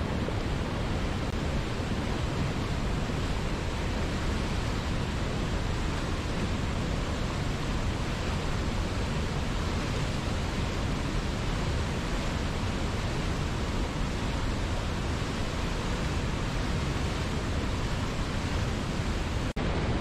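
Waterfall and whitewater rapids rushing over rocks: a steady, full roar of falling and churning water, with a momentary dip near the end.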